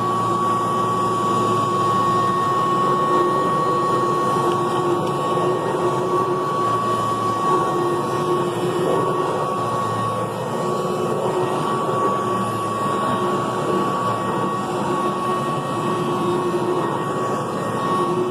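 Kirby Classic III 2-CB upright vacuum cleaner running steadily, a constant motor-and-fan whine over a rushing airflow noise.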